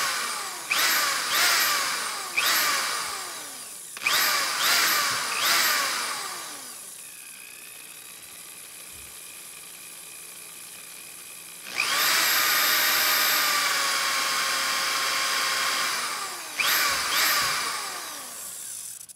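Power drill motor run in short trigger pulls, each spinning up and then winding down in falling pitch, with a quieter stretch in the middle. Then one steady full-speed run of about four seconds and two more quick bursts before it cuts off.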